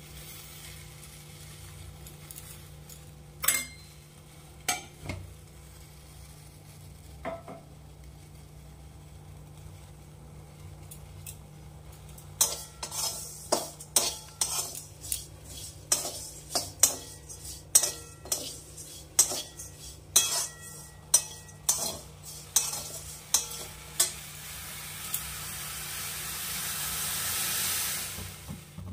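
A metal spoon clinking and scraping against a steel cooking pot. A few scattered clinks come first, then a steady stirring run of about two ringing strikes a second. Over the last few seconds a rising hiss takes over, then cuts off abruptly.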